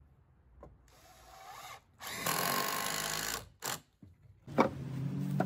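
Cordless drill spinning up and then boring into wood for about a second and a half, stopping, then running again near the end.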